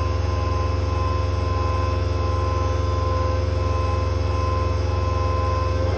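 CNC router running steadily with its spindle at speed: a constant low hum with a steady whine above it.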